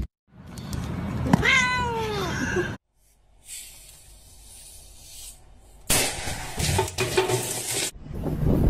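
A cat meows once, one long call that falls in pitch. Then a faint hiss, and about six seconds in a loud burst of noise lasting about two seconds.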